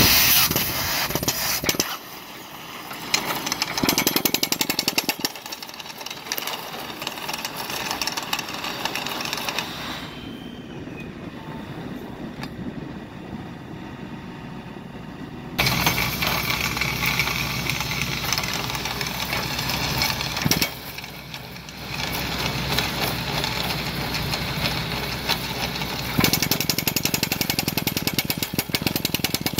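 Excavator-mounted hydraulic driver hammering and turning a steel ground screw into rocky soil, a fast, dense rattle of blows over the running excavator engine. It comes in stretches: loud over the first couple of seconds, drops for a long quieter spell, comes back loud about 16 seconds in, and is loudest and most clearly rapid-fire over the last few seconds.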